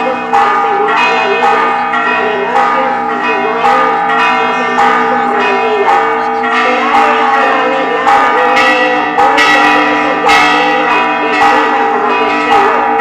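Church bells ringing a continuous peal, several bells struck in quick, irregular succession, about two or three strokes a second, their tones overlapping and ringing on.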